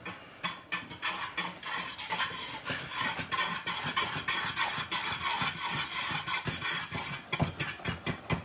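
Metal spoon stirring rapidly in a teal saucepan of boiling rice, scraping against the pot in quick, repeated strokes.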